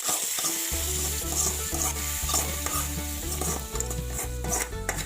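Food sizzling in a hot pan while being stirred, over background music with a steady bass line that comes in just under a second in.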